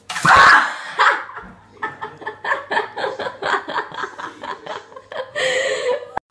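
A person laughing in a run of short rhythmic bursts, about three or four a second, opened by a loud sudden burst of sound as the startled cat leaps away from the cucumber. Another loud burst of laughter comes near the end, then the sound cuts off abruptly.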